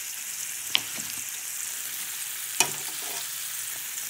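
Lamb chops sizzling steadily in butter in a frying pan, with fresh pats of butter melting in, broken by two sharp clicks, one under a second in and another about two seconds later.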